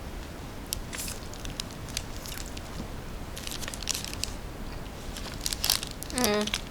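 Close-miked eating of a crunchy snack: scattered crunching and crackling bites and chews. Near the end comes a short hummed "mm".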